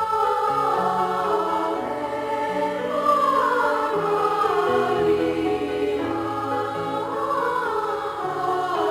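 A choir singing a slow, soothing religious piece over sustained low accompaniment notes.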